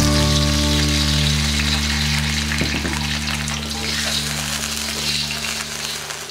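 Chopped green chillies with shallots and garlic sizzling in a hot wok as water is poured in, then a metal spatula stirring and scraping against the wok. The sizzle is strongest right at the start.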